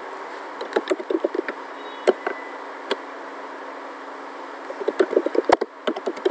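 Computer keyboard keys clicking in short runs, a quick flurry about a second in, a couple of single clicks, then a denser run of typing near the end, over a steady background hiss.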